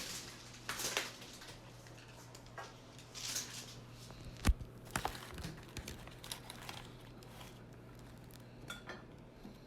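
Scattered light clinks and knocks of dishes, utensils and food containers being handled on a table, with one sharper knock about four and a half seconds in. A faint steady low hum runs underneath.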